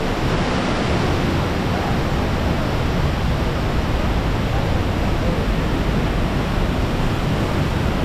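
Steady rush of a waterfall at close range, with spray and wind buffeting the microphone in the low end.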